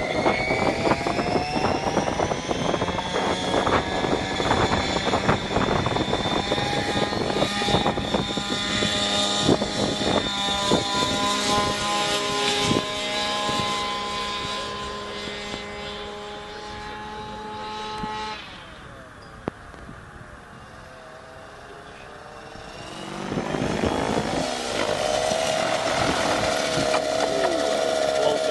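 Radio-controlled helicopter flying, its motor and rotor whine making a set of steady tones that rise in pitch over the first few seconds. About eighteen seconds in, the power sound drops away abruptly, as when the throttle is cut for an autorotation, leaving a quieter spell of about five seconds. Then the power comes back and rises again.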